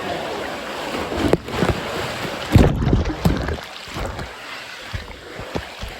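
Water sloshing and splashing close to the microphone, with irregular low thumps and knocks over a steady rush of water. The loudest thump comes about two and a half seconds in.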